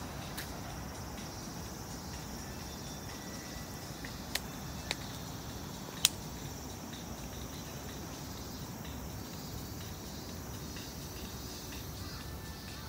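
Insects buzzing steadily in the trees over a low outdoor rumble, with three sharp clicks a little before halfway, the last one the loudest.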